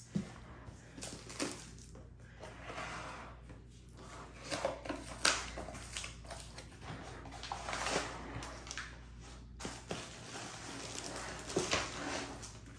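Cardboard handling noise from a long kit box: scraping and sliding as the inner box is pushed out of its sleeve, with scattered rustles and a few light knocks.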